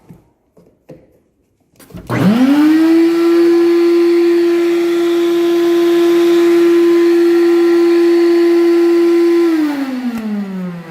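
Central vacuum power unit started through its low-voltage control wire as a temporary test: a few light clicks, then the motor spins up quickly to a steady high whine. About seven seconds later it is switched off and its pitch falls as the motor winds down.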